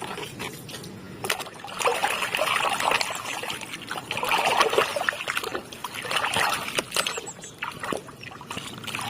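Water splashing and trickling over a muddy toy racing motorbike as it is washed clean, coming in uneven surges with a few sharp clicks.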